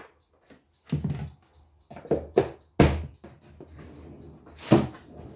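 Plastic food containers knocking and thudding on a kitchen countertop as they are picked up and set down, about five sharp knocks with quiet gaps between.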